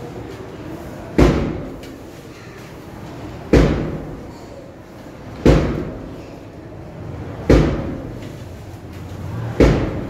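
Five loud thuds, evenly spaced about two seconds apart, each with a short echoing tail.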